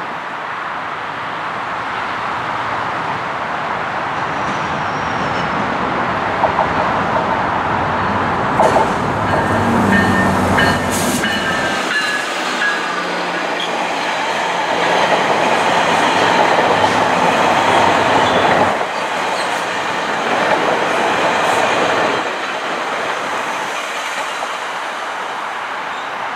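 GO Transit commuter train of bilevel coaches running past the platform: a steady rumble that builds, peaks midway and eases off, with wheels clicking over rail joints and a few brief high-pitched tones about a third of the way through.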